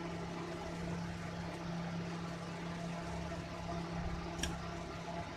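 A steady low hum under the drawing work, with one light click about four and a half seconds in as the plastic ruler is set down on the paper at a new angle.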